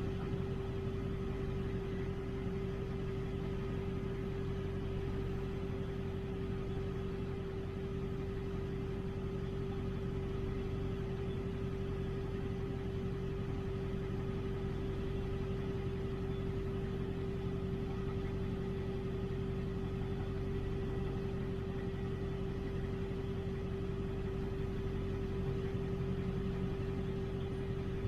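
A vehicle's engine running steadily, with a constant hum that holds one pitch throughout.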